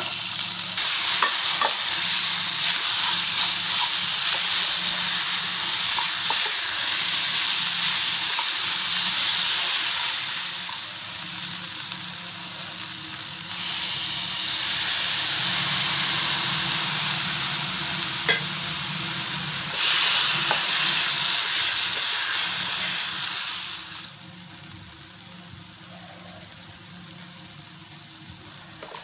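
Onions and mashed potato frying in a metal kadai, sizzling steadily, with a wooden spatula scraping and clicking against the pan as it stirs. The sizzle drops to a faint hiss for the last few seconds.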